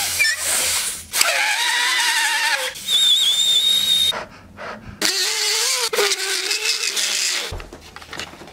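Homemade squealing whistle sounds made by blowing through household items such as a balloon, straw or blade of grass: a string of wavering, airy squeals, each lasting one to two seconds. The middle squeal is high and shrill, settling to a steady pitch, and the last is lower.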